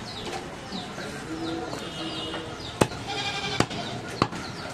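Goat bleating in the background. Three sharp knocks in the second half, from a butcher's knife chopping goat meat on a wooden log block.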